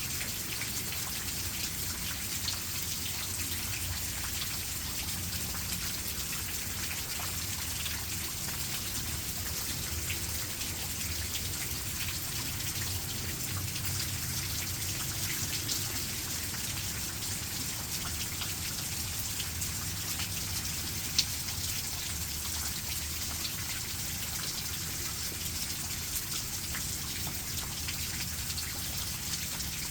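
Steady rain falling, an even hiss made of many small drop impacts with a low rumble underneath, and one sharper drop hit about two-thirds of the way through.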